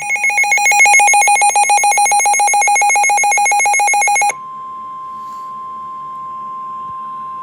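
Emergency Alert System alert tones for a flash flood warning. A harsh, rapidly pulsing two-tone attention signal sounds for about four seconds, then switches abruptly to a steady single tone near 1 kHz, the weather-radio warning tone, which holds for about three seconds and cuts off.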